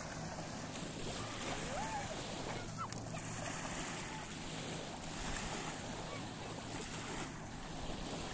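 Small waves lapping and breaking on sand at the water's edge, with a steady wash of wind.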